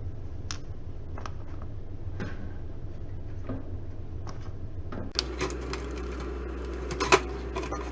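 Scattered clicks and light knocks of a toaster oven's sheet-metal case and screws being handled during disassembly. The clatter grows busier about five seconds in, with one loud knock about seven seconds in.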